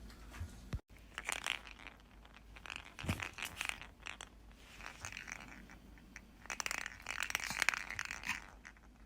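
Light rattling and scraping in several short bursts: a Yorkshire terrier playing with a ball toy that has a loose ball rattling inside it.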